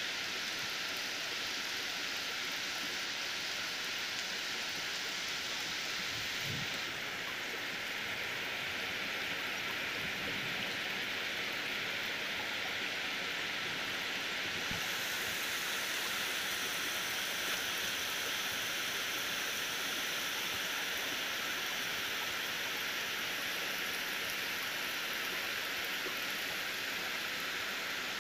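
Steady rain falling on palm fronds and leafy trees: an even, unbroken hiss.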